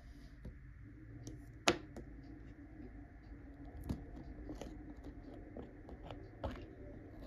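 Small clicks and scraping from handling a screw cap on a small ink bottle as it is gripped and twisted loose, with a sharper tap about one and a half seconds in and two lighter ones later.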